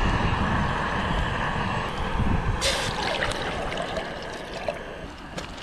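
Water trickling and gurgling over a steady rushing background, with a brief hiss about two and a half seconds in.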